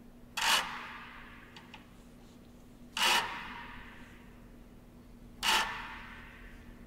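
A sharp hit with a ringing, shimmering decay, sounding three times about two and a half seconds apart over a steady low hum.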